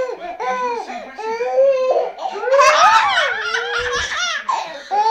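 A toddler giggling and laughing in high-pitched bursts, loudest about halfway through.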